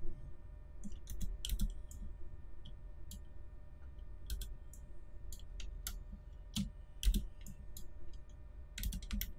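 Irregular single clicks of a computer mouse and keyboard keys being pressed, spaced unevenly, over a low steady background hum.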